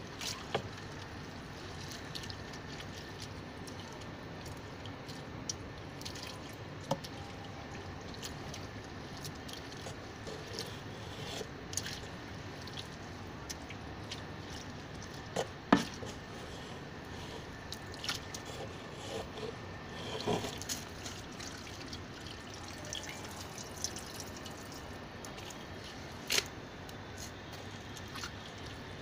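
Wet compost slurry in a plastic drum giving scattered small drips and pops over a steady low hiss, with two sharper clicks, one about halfway through and one near the end.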